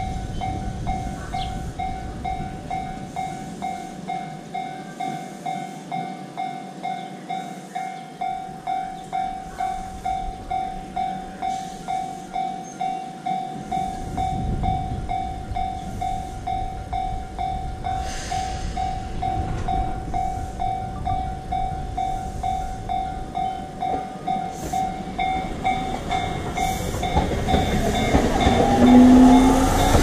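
Japanese railway level-crossing alarm ringing steadily, an electronic ding-ding at about two strokes a second. Near the end a train comes up and passes close, its sound growing louder with a rising whine.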